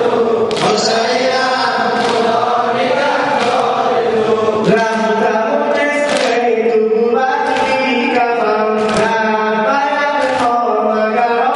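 A male reciter chanting a Shia mourning lament (noha) into a microphone, with mourners' voices joining in. Sharp slaps recur about once a second: the chest-beating (sineh zani) that keeps time to the lament.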